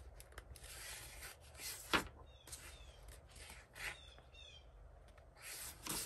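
Paper pages of a paperback coloring book being handled and turned, with soft rustling and rubbing in several short bursts. A sharp snap of paper about two seconds in is the loudest sound.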